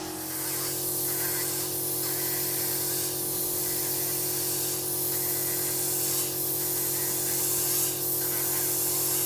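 Wet-technique pedicure drill running steadily, its water spray hissing over the motor's steady hum, as a green sanding cap grinds callus from the side of the foot.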